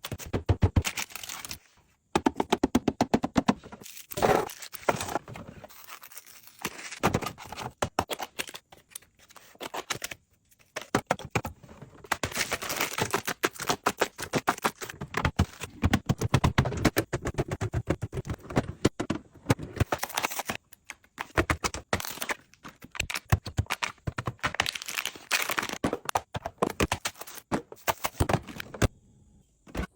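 Fridge restocking: food packaging and containers being handled and set down, with many quick clicks and taps, scraping and crinkling of packaging.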